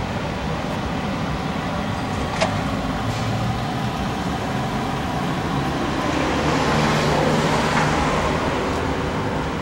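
Steady city street traffic noise, swelling as a vehicle passes about six to eight seconds in. A brief sharp click comes about two and a half seconds in.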